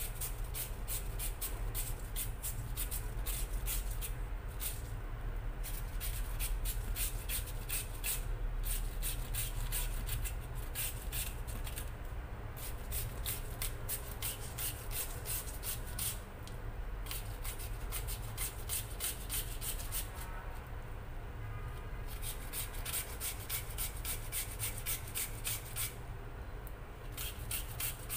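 Taro root being shredded on a hand grater: quick, even scraping strokes, several a second, in runs broken by short pauses.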